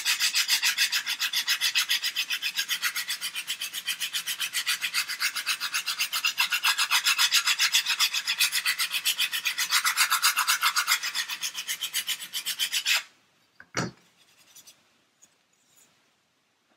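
Fast back-and-forth rasping of a coarse-grit abrasive file sanding the edge of an MDF false keel, about five strokes a second, taking it down to a taper. The strokes stop about 13 seconds in, followed by a single knock as the file is set down.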